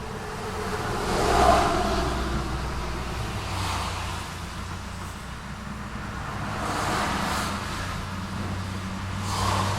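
Street traffic: vehicles passing one after another, each swelling and fading in tyre and engine noise over a steady low engine hum. The loudest pass comes about a second and a half in, with further passes at intervals of two to three seconds.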